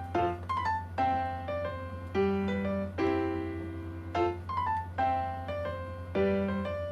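Background music: a piano playing a light melody in a steady rhythm of struck notes over a low steady hum.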